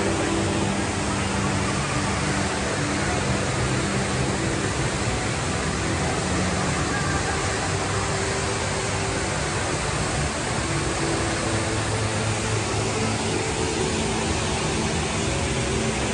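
Steady rush of the Rain Vortex, an indoor waterfall pouring down through the oculus of a glass dome into its basin, with faint music beneath.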